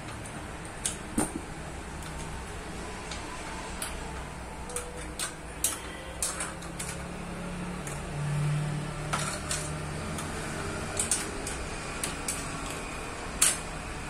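Irregular metallic clicks and clinks of tools and small bicycle gear parts being handled while the gear is opened, over a steady low hum.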